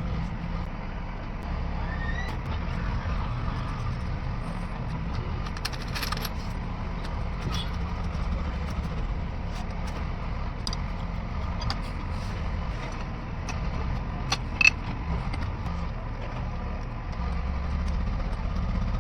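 A steady low mechanical rumble like a running engine, with scattered sharp metallic clicks and taps, the loudest about fourteen and a half seconds in.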